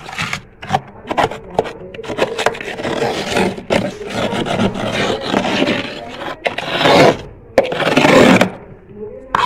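Thick freezer frost being scraped by hand, a rough, gritty scraping that goes on in strokes, loudest in two long scrapes about seven and eight seconds in.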